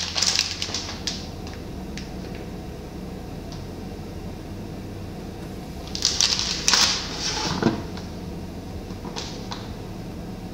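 Steady low hum under off-camera kitchen handling noises: a few sharp clicks, and two short bursts of hiss or rustle about six and seven seconds in.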